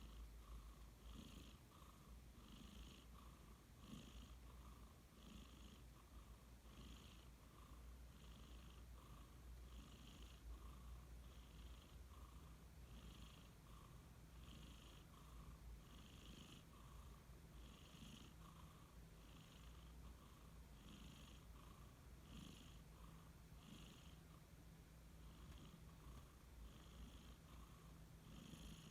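Domestic cat snoring in its sleep: faint, even snoring breaths repeating a little more than once a second.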